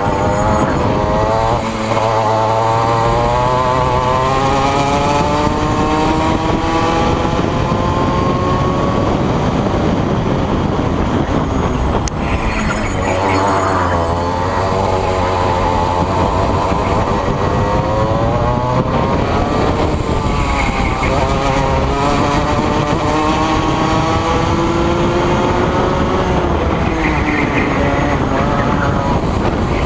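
Rotax Max kart's 125 cc two-stroke single-cylinder engine at racing speed: the revs climb steadily along the straights and drop back sharply into the corners, three or four times over the lap.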